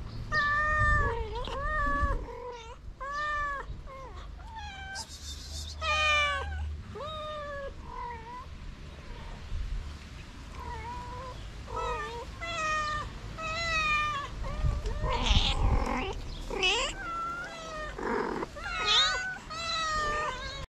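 Kittens meowing over and over, many short high calls that rise and fall in pitch, several kittens calling at once in the second half.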